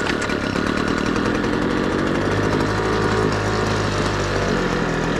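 Homelite Mighty Lite 26BP backpack blower's two-stroke engine running on half choke just after starting, its pitch shifting a couple of times. It is a little fuel-starved on its newly fitted carburetor, which still needs its high and low mixture screws adjusted.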